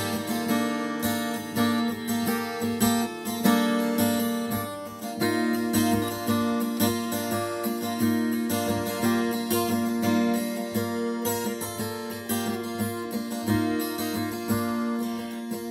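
Yamaha acoustic guitar played solo, chords strummed and picked with many quick strokes; the chord changes about five seconds in.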